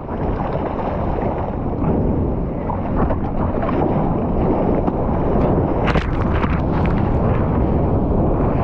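Strong wind buffeting the microphone over the steady rush of storm surf, with a few sharper gusts about two thirds of the way through.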